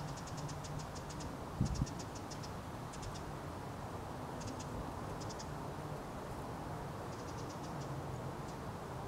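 Outdoor ambience: a steady low rumble, broken by several short runs of rapid high ticking and a soft bump about two seconds in.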